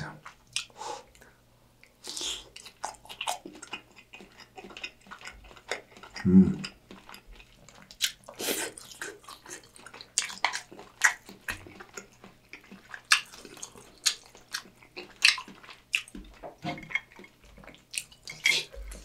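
Close-miked chewing of a broth-soaked pork cutlet (tonkatsu): a long run of wet bites and mouth clicks, with one short low sound about six seconds in.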